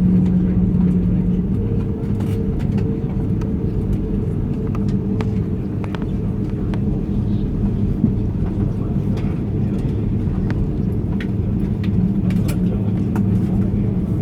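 Steady low rumble inside the cabin of a Delta Airbus A330-300 rolling on the ground after landing, with a steady hum and faint scattered clicks.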